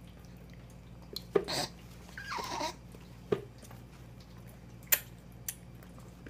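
A baby eating puréed carrots off a spoon: a few sharp clicks and short wet mouth sounds, with a brief louder mouth noise a little after two seconds in.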